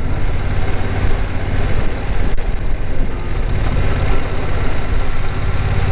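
BMW F900 XR's parallel-twin engine running steadily at road speed, under a rush of wind noise.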